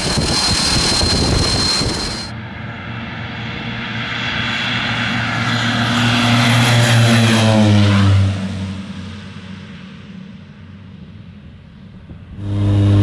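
Propeller aircraft engine: a plane running past, its pitch dropping about seven to eight seconds in as it goes by and fades. Near the end it cuts abruptly to a loud, steady engine drone heard up close.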